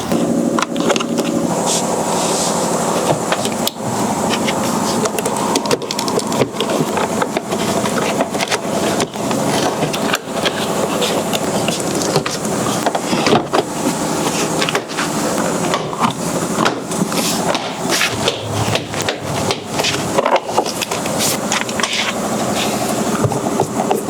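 A continuous stream of irregular knocks, clicks and rubbing from hands working on and fitting trim parts.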